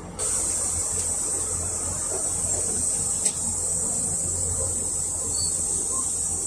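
Low hum of a PAZ 320540-22 bus's ZMZ-52450A engine, running on LPG, heard from the cabin. Over it a steady high hiss sets in suddenly and fades out about six seconds later, with one sharp click about halfway through.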